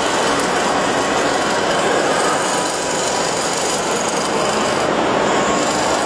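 Steady whirring and grinding of radio-controlled scale model construction machines: small electric motors and gearboxes running as the models drive over sand.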